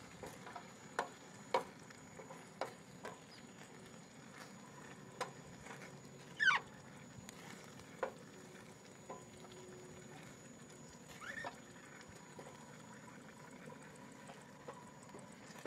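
A utensil stirring meat and onions in a sac pan over a fire, with scattered clicks of the utensil against the pan over a faint steady sizzle. Two short chirp-like glides stand out, about six and eleven seconds in.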